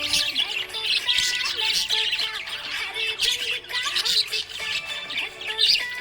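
Budgerigar chirping and warbling: a quick, unbroken run of high chirps and squawks.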